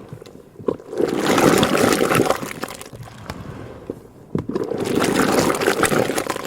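Liquid rushing and splashing in butter-making machinery, in two long surges a few seconds apart, with scattered clicks and knocks.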